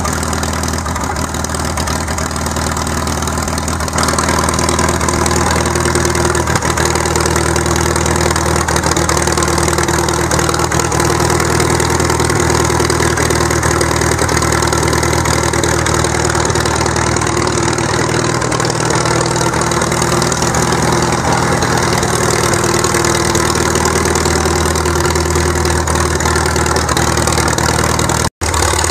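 Farmall M tractor's International 4.1-litre four-cylinder gasoline engine running at a steady speed, getting louder about four seconds in.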